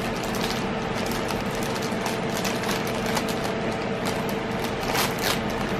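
Packaging of a pack of chocolate peanut butter cups crinkling and clicking as it is opened, in short crackles with a few sharper ones around two and a half and five seconds in. Under it a steady mechanical hum with a constant low tone.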